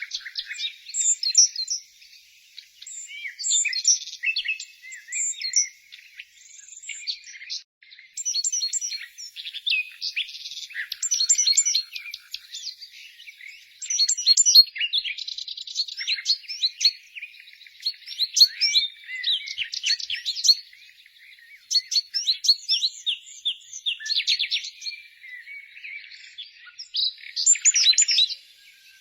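Several small songbirds chirping and singing in quick, overlapping high-pitched phrases and trills, with short pauses between bursts.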